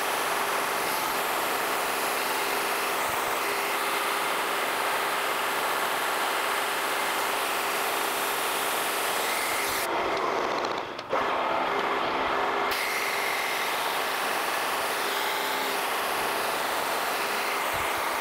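Wells-Index vertical milling machine running a face mill across a metal part, a steady machining noise with the hiss of a coolant mist sprayer. About ten seconds in the hiss drops away for a few seconds and there is a brief dip with a falling sweep before the steady noise returns.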